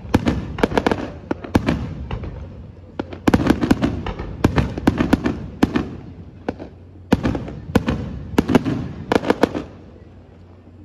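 Aerial fireworks shells bursting in rapid volleys of sharp bangs, in three dense runs, stopping shortly before the end.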